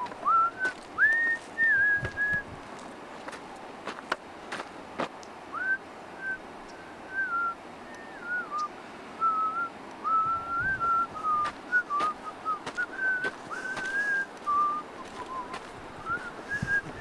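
A person whistling a meandering tune, one clear note at a time that slides up and down, in phrases with a pause of a few seconds early on.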